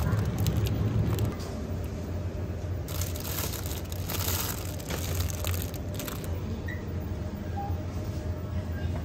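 Thin plastic food packaging crinkling as packs of noodles and cut vegetables are handled and lifted from a shelf, loudest about three to six seconds in, over a steady low hum.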